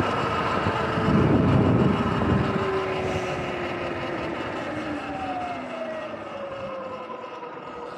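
Sur-Ron electric dirt bike's motor whining, with wind and tyre noise on wet pavement. A gust of low wind noise comes about a second in. Over the second half the whine falls in pitch and the sound grows quieter as the bike slows.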